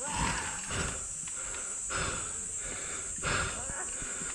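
A hiker breathing heavily and hoarsely while climbing, each breath a breathy swell about once a second, over a steady high-pitched hiss.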